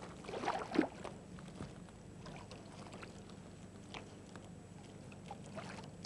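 Hooked carp splashing and swirling at the surface close to the bank while it is played in on the line: a few splashes in the first second, then faint water lapping.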